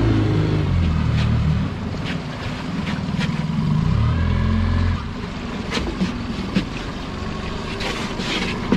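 Outboard motor of a small dinghy being throttled back, its note dropping, briefly picking up again, then falling to a low run about five seconds in as the boat slows. Water washes against the hull, with a few sharp knocks in the second half.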